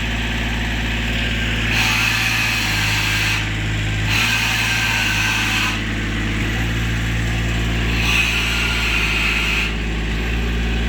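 An engine runs steadily under three surges of air hissing, each about a second and a half long, as compressed air pushes the epoxy liner into the old sewer pipe.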